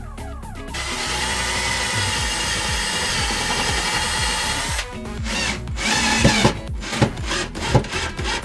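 Ryobi cordless drill running: it spins up just before a second in and runs steadily for about four seconds, then works in short spurts for the rest.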